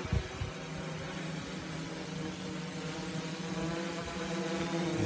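Homemade hexacopter drone's electric motors and propellers buzzing steadily in a hover, a steady hum with a stack of overtones. A brief low thump of wind on the microphone just after the start.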